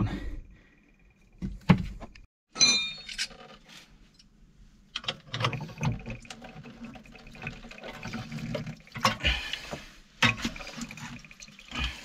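Knocks and metallic clinks of grips and brass fittings on a small water-heater expansion vessel, with water trickling into a sink.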